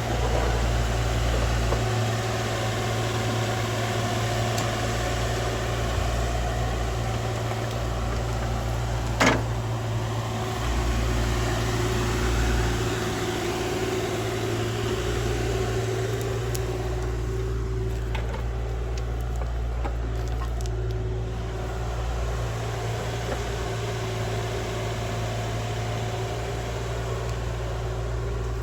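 Engine of heavy excavation equipment running steadily, a low hum with a constant tone, and a single sharp click about nine seconds in.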